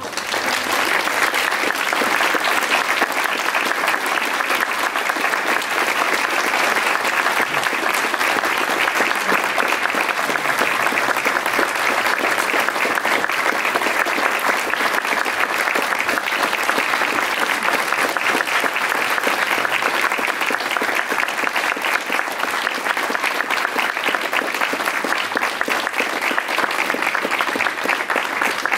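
Audience applauding in a hall: it breaks out all at once after near silence and carries on steadily.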